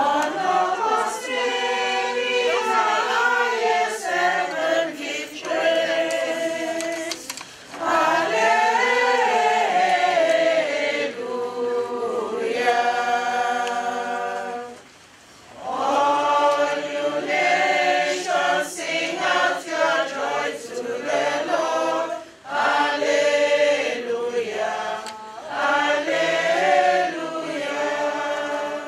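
Choir singing in phrases, with short breaks between the lines.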